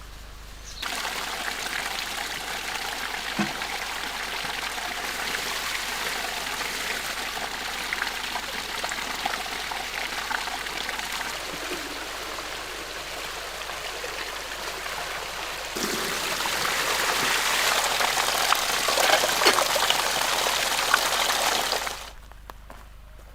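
Running water: a steady splashing, trickling rush that starts abruptly, gets louder about two-thirds of the way through and cuts off near the end.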